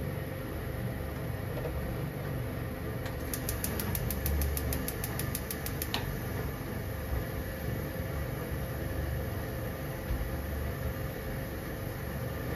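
Steady low mechanical hum of kitchen equipment, with a run of fast, faint high ticks starting about three seconds in and stopping with a single click about six seconds in.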